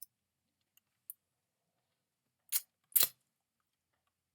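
Clicks from a computer keyboard and mouse: a few faint clicks, then two louder sharp clicks about half a second apart, a little past halfway through.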